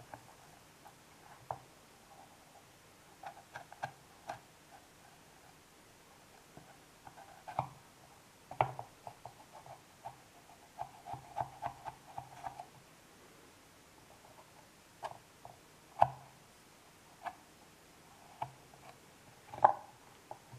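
Small knife cutting into a crisp green apple on a wooden board: irregular little crunching clicks and taps, with a quick run of them about eleven to twelve seconds in and the sharpest clicks near nine, sixteen and twenty seconds in.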